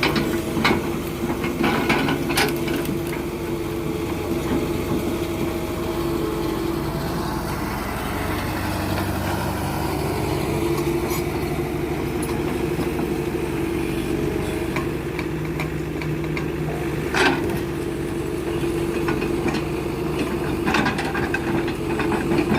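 Excavator's diesel engine running steadily, with a few sharp knocks over it, the loudest about seventeen seconds in.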